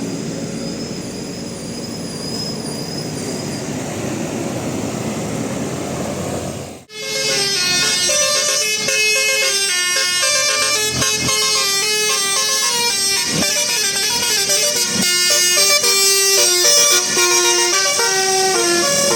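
Bus 'telolet' musical air horn playing a fast melody of stepped notes. It starts suddenly about seven seconds in, after a stretch of steady traffic and engine noise.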